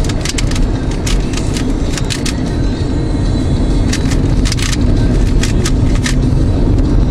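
Steady low rumble of a car heard from inside the cabin. Many quick, irregular clicks and rattles sound over it.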